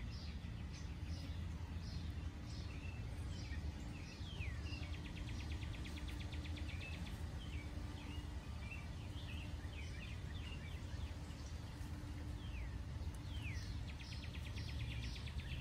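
Songbirds singing: many short chirps and sweeping notes, with a rapid trill twice, over a steady low rumble.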